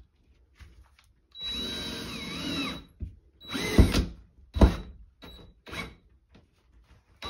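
Cordless drill driving a drywall screw: the motor runs for about a second and a half with its pitch wavering, then two sharp clicks and a few short bursts of the drill as the screw is set.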